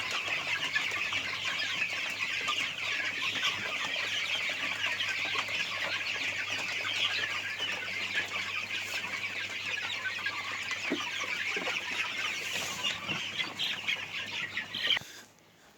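A large flock of 26-day-old chicks cheeping continuously, a dense chorus of high peeps, which cuts off suddenly near the end.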